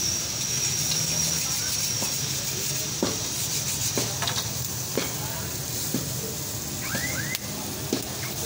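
Oiled burger buns sizzling on a flat iron griddle, with a metal spatula clicking and scraping against the griddle about once a second.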